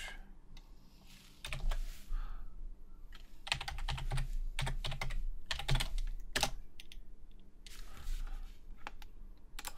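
Typing on a computer keyboard: several short runs of quick keystrokes with pauses between them.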